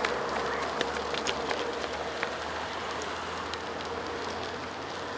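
Bicycle tyres rolling over damp paving stones: a steady hiss with scattered small clicks and rattles.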